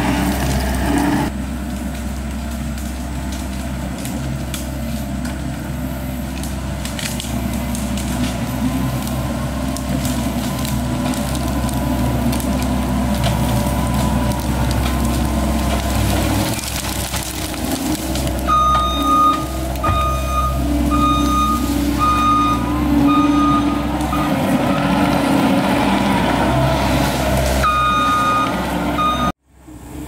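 Diesel engine of a compact track loader running steadily under load as it works a grapple. A reverse alarm beeps repeatedly for several seconds past the middle and again shortly before the end. The sound cuts out briefly near the end.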